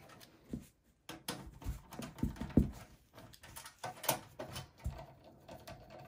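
Hand screwdriver turning out a power-supply screw in a metal PC case: irregular small clicks and scrapes of the tip in the screw head, with a few louder knocks a little past two seconds in and again about four seconds in.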